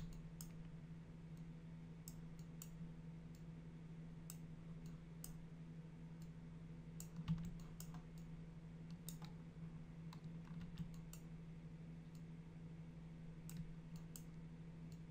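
Faint, scattered clicks of a computer mouse and keyboard at irregular intervals, over a steady low hum.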